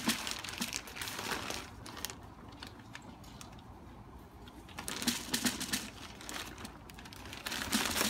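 Scattered light clicks and plastic crinkling from the birdseed bag, funnel and 2-liter bottle being handled after pouring. The clicks come in two spells with a quieter stretch between them.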